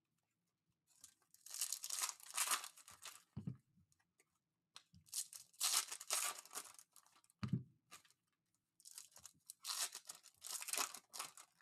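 Foil wrappers of Panini Recon basketball card packs being torn open and crinkled by hand, in three bouts of a couple of seconds each.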